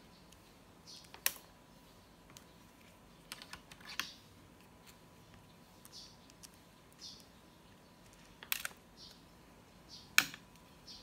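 Handling noise from a plastic sports watch and its nylon strap: a few sharp clicks and taps, the loudest about a second in and near the end, with short soft swishes of the strap in between.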